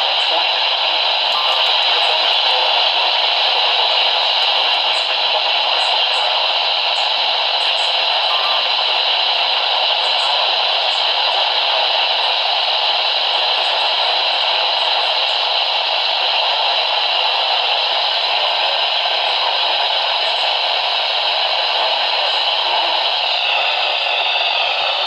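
Radio receiver hiss and static: a steady, loud rush of noise with faint crackles, its tone shifting slightly near the end.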